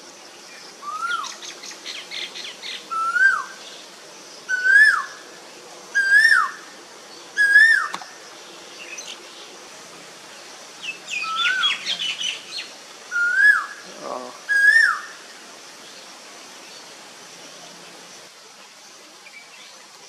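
Male Asian koel giving its 'ko-el' call: five two-part notes that swoop up and drop, each a little higher and louder than the last, then after a pause three more. Quick high chirps from other small birds come twice in the background.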